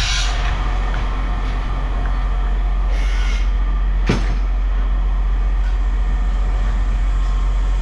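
A heavy machine's engine running steadily with a constant low drone. There is a brief hiss about three seconds in and a sharp click or knock about a second later.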